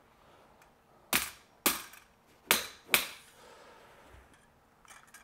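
Claw hammer tapping the end of a one-piece metal cleaning rod down an AR-15 barrel, four light, sharp metallic strikes, each with a short ring. The taps drive a stuck steel-cased round back out of the chamber.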